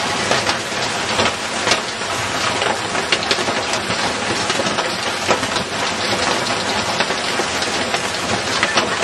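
Heavy hail falling: a dense, steady clatter of countless hailstone impacts over the rush of a downpour.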